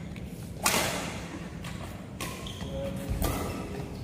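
Badminton rackets striking a shuttlecock three times in a rally: sharp cracks, the first and loudest about two-thirds of a second in, then two more roughly a second and a half and a second apart.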